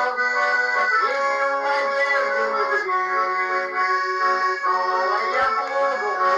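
Instrumental music of held chords that change every second or two, with no singing.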